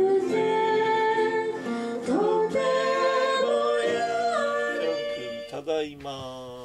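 A song sung to acoustic guitar accompaniment, ending on a held note that fades out near the end.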